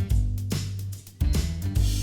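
Background music: a guitar-led track with a steady beat and bass line.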